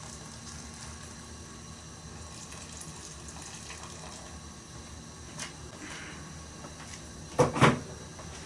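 Boiled water poured from an electric kettle into a pot of browned meat, a steady pouring and bubbling. Two loud knocks come near the end.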